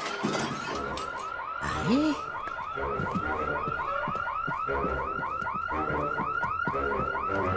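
Electronic alarm siren warbling rapidly, about five rising-and-falling chirps a second, steady throughout. A brief low grunt-like vocal sound comes about two seconds in.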